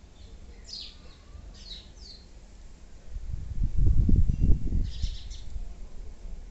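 Small birds chirping: a few short, high, falling chirps. About three seconds in, a loud low rumble lasts about two seconds.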